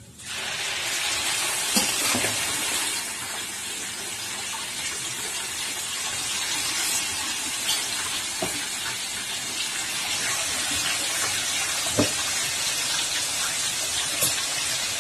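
Masala-coated chicken pieces being dropped into a pot of hot oil for deep-frying. A steady frying sizzle starts suddenly as the first pieces go in, with a few sharp clinks of the steel spoon against the bowl and pot.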